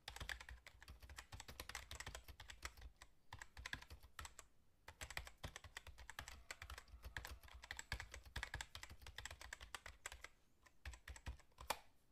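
Quiet computer keyboard typing: rapid runs of clicking keystrokes with short pauses between them, and one louder keystroke near the end.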